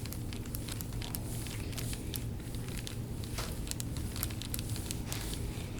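Soft crinkling and crackling with many scattered small clicks, from hands pressing and sliding over a patient's back during deep-tissue massage, over a low steady hum.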